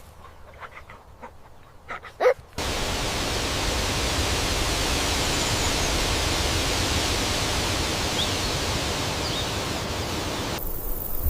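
A brief animal call, then a steady rushing noise that starts abruptly and cuts off suddenly near the end.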